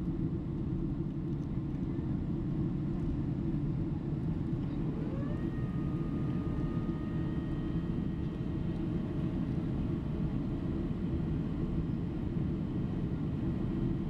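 Steady cabin roar of a Boeing 767-300 airliner on approach, engine and airflow noise heard from inside the cabin. About five seconds in, a whine rises and then levels off into a steady tone that fades out after a few seconds.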